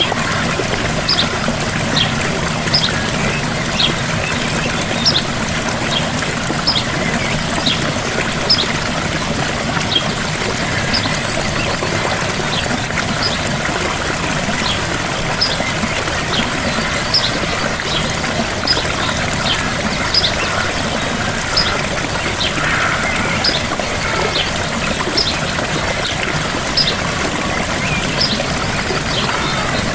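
Small waterfall splashing and pouring steadily, with short high chirps recurring about once a second over the water.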